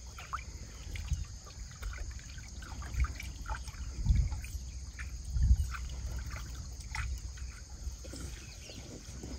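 Shallow river water trickling and lapping, with scattered light clicks and a low rumble that swells twice, about four and five and a half seconds in.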